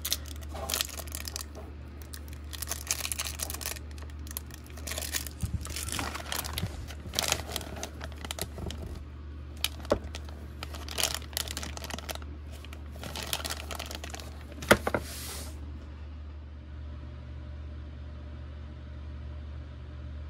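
Clear plastic polybag crinkling and rustling in irregular bursts as a packaged action figure and other bagged items are handled, with one sharper crackle near the end. About three-quarters of the way through the handling stops, leaving only a steady low hum.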